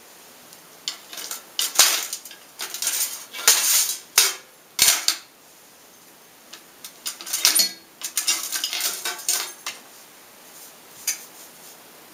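Forged steel bottle opener and blacksmith's tongs clinking and scraping against a metal tin of wax as the piece is turned and worked in the wax, in two main bursts of sharp clatter with a last clink near the end.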